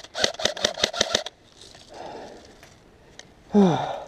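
Airsoft gun firing a rapid string of shots, about seven a second for just over a second. Near the end a person gives a short cry that falls in pitch.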